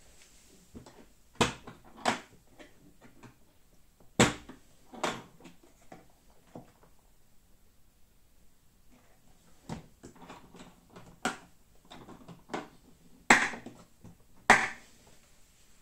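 Milwaukee Packout hard plastic case being opened and shut by hand: sharp plastic snaps of the latches, the loudest coming in pairs about a second apart, with softer knocks of the lid and shell in between.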